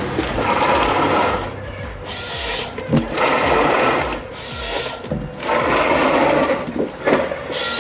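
Komatsu 931 XC forest harvester working, its machinery running with a fast mechanical buzz that surges about every two and a half seconds.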